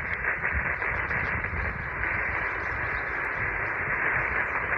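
Steady hiss from a single-sideband radio receiver tuned to the RS-44 satellite's downlink, with no station coming through.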